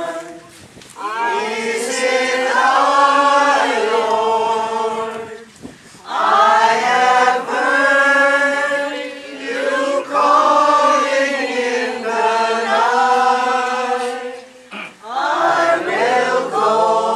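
A congregation singing a hymn together, in long sung phrases broken by brief pauses about a second, six seconds and fifteen seconds in.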